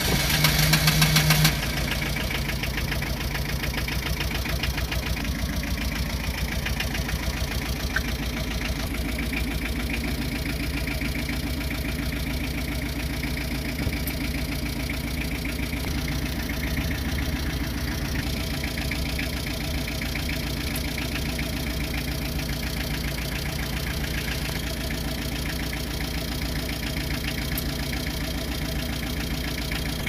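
Tata Ace Gold mini-truck engine being started remotely: the starter cranks briefly, the engine catches about a second in, then idles steadily.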